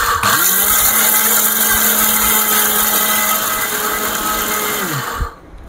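Orpat mixer grinder's motor running at full speed with its blades spinning in a small steel jar, a loud steady whirr. Just after the start it dips briefly and spins back up, and about five seconds in it is switched off and winds down to a stop.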